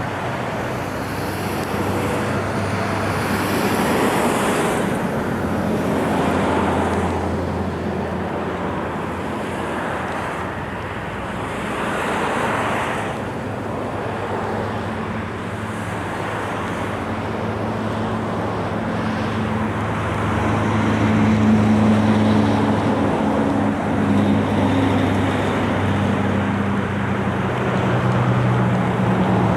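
A large engine droning steadily, with a rushing, wind-like noise over it that swells and fades several times.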